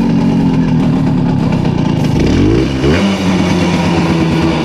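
A Simson two-stroke moped engine idling steadily, then blipped up in revs once a little over two seconds in and dropping back to idle.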